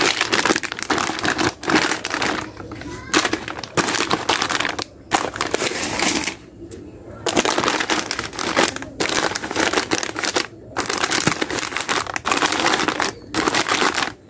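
Plastic snack-chip bags crinkling and rustling as they are handled and stacked on a wire rack, in repeated bursts with brief pauses.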